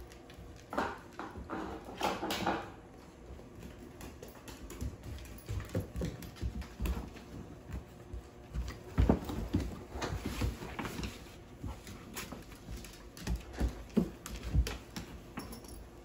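Dogs moving about on a hardwood floor: claws clicking and paws thumping at irregular moments, mixed with the rustle of a pop-up tent's fabric as a husky puppy pushes into it.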